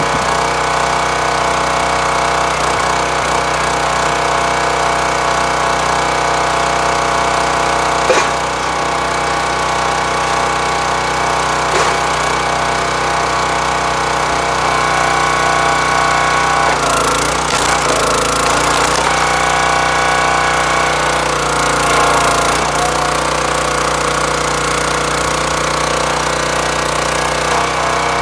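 Engine of a hydraulic log splitter running steadily as the ram drives an ash round through a home-built four-way wedge. The wood cracks and tears as it splits, loudest a little past halfway and again a few seconds later, with a couple of sharp knocks of wood against steel earlier on.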